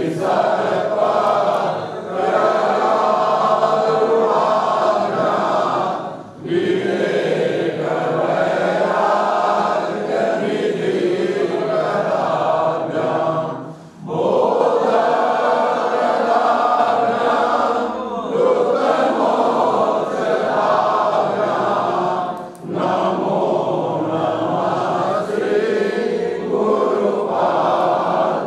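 A group of voices chanting a devotional aarti hymn together, in long sustained phrases with a brief pause about every eight seconds.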